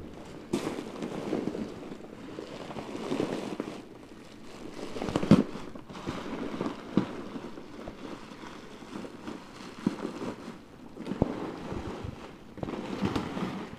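Bubble wrap and foil packaging crinkling and rustling as it is pulled apart by hand, with scattered sharp crackles and clicks.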